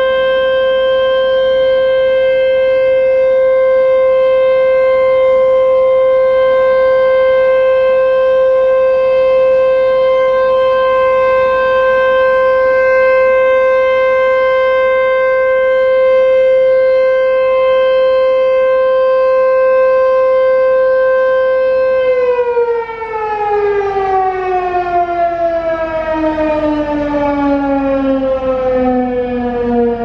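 American Signal T-128 rotating outdoor warning siren sounding a steady alert tone, then winding down in a long falling glide about three quarters of the way through as the alert signal ends.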